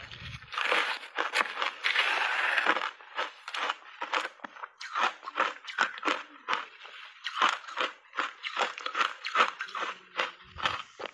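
Crunchy shaved ice being chewed in big bites close to a clip-on microphone: a rapid, irregular run of sharp crunches, packed densest about a second in.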